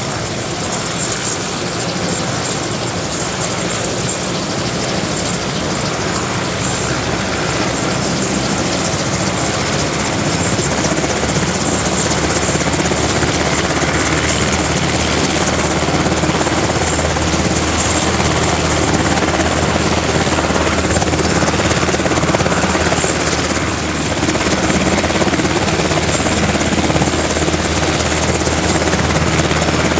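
UH-60J Black Hawk helicopter running on the ground with its main rotor turning: a steady rotor and turbine noise with a high, constant turbine whine, gradually getting louder.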